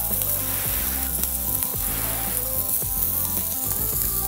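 Food sizzling on a hot griddle: a steady frying hiss.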